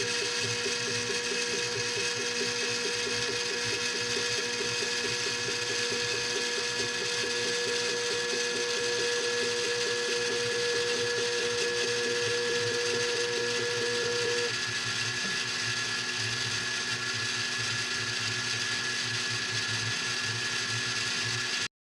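3D printer running a print: the stepper motors whine and hum at several steady pitches, and one higher whining tone drops out about two-thirds of the way through. The sound cuts off abruptly at the end.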